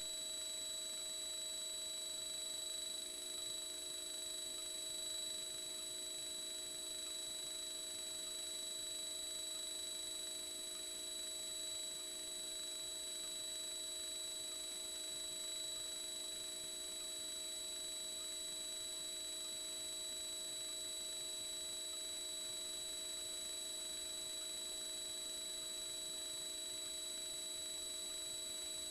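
Steady electronic whine: several constant high tones over a faint even hiss, unchanging throughout.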